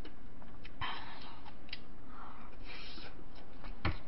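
Wooden spoon scraping and clicking in a large glass bowl of bibimbap, with the eater chewing, and a sharp knock just before the end.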